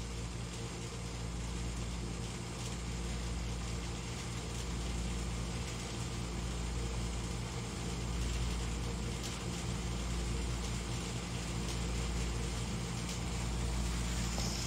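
Steady low mechanical hum made of several fixed tones over a low rumble, unchanging throughout, with a few faint clicks.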